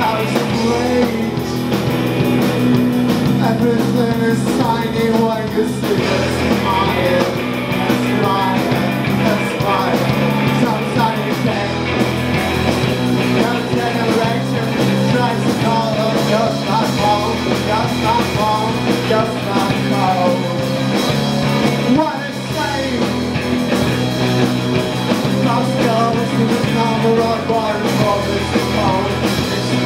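Live rock band playing amplified electric guitars, bass guitar and drum kit.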